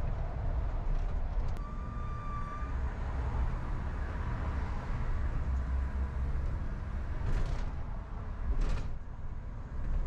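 Car driving along a city street: a steady low road and engine rumble, with a brief steady high tone about two seconds in and two short rushing sounds near the end.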